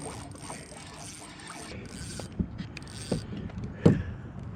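Fishing reel being cranked to bring in a hooked snook, its gears whirring, with a few sharp knocks in the second half, the loudest near the end.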